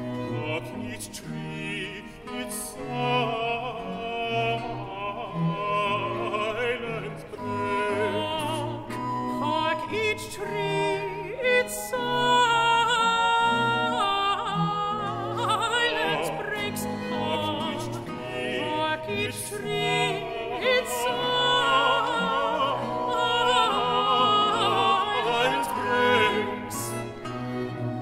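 Countertenor and baritone singing a Baroque vocal duet, accompanied by two recorders and a continuo of bowed strings including cello and double bass.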